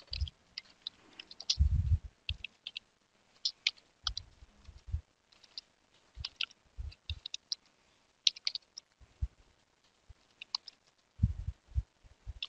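Keys on a computer keyboard being typed in irregular bursts of short clicks, some landing with a dull thump.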